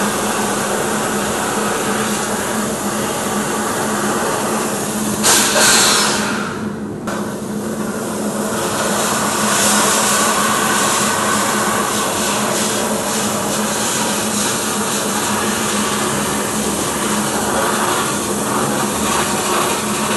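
Steel shot blast cabinet in use: the air-fed blast nozzle hisses steadily as fine stainless steel shot sprays against engine valves set in a valve rack, with a steady hum underneath. About five seconds in the blast surges, then drops out for about a second before resuming.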